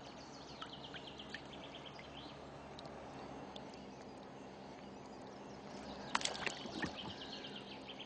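Small birds chirping in repeated quick trills over a faint steady hum, with a brief burst of water splashing about six seconds in as a large carp is held in the shallows.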